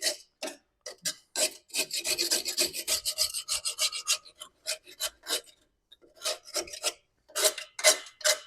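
Knife blade scraping rust off the steel backing plate of a 2008 Toyota Yaris rear drum brake in short, repeated rasping strokes, with a denser run of scraping about two seconds in.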